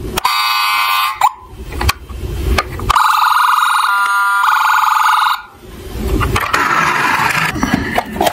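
Toy police SUV's electronic siren sounding: a short burst at the start, then a longer, louder one of about two and a half seconds from about three seconds in. In the last few seconds the siren stops and there is rustling and knocking of cardboard packaging being handled.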